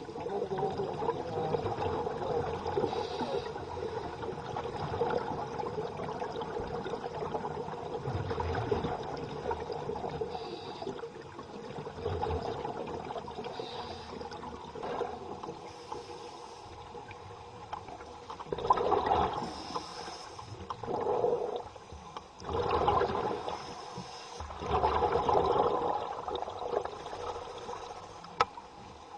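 Scuba diver breathing underwater through a regulator, with bubbling and rushing water noise. The noise is steady at first, then comes as several separate surges of exhaled bubbles about two seconds apart near the end.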